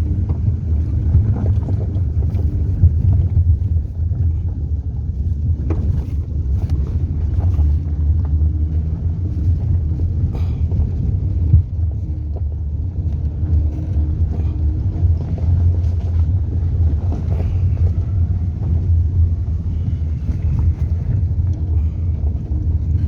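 Steady low rumble with a faint steady hum above it and a few light clicks.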